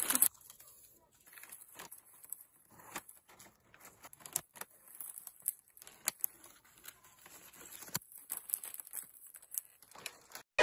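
Gift wrap crinkling and rustling in short, faint, scattered bursts as it is twisted closed and tied with ribbon, with quiet gaps between.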